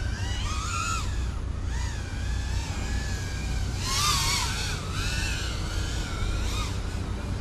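FPV quadcopter's brushless motors whining, the pitch rising and falling as the throttle changes, with a louder, higher surge about four seconds in. A steady low rumble runs underneath.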